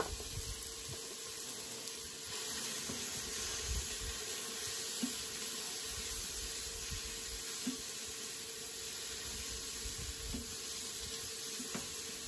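Onions and shallots sizzling softly in an Instant Pot on sauté, a steady hiss with a few small clicks.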